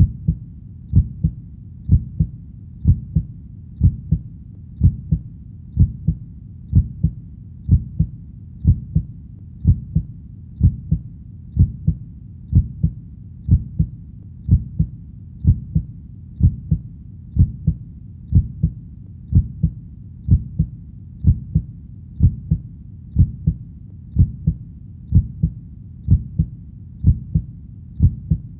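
Heartbeat at a slow, steady resting pace of about one beat a second, each beat a low double thump (lub-dub).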